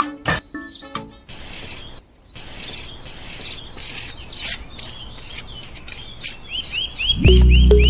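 Birds chirping repeatedly in short whistled notes, with scattered clicks and a faint scraping. Background music with a heavy bass comes in near the end.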